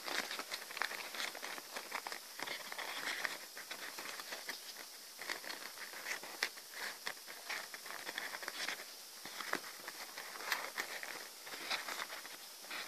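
Folded paper units of a 3D modular origami ball rustling and crinkling as fingers tuck and press them together, with many small irregular clicks and taps.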